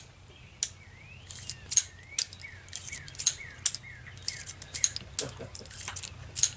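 Sharp metallic clicks and clinks, about a dozen at uneven spacing, from handling a .22 revolver. A bird sings a run of short downward chirps in the background from about a second in until about three and a half seconds in.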